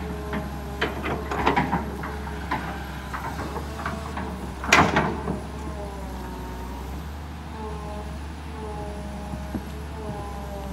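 Kobelco SK200 hydraulic excavator working: its diesel engine runs steadily under a hydraulic whine that rises and falls as the boom and bucket move. The bucket scrapes and knocks in the soil, loudest about five seconds in.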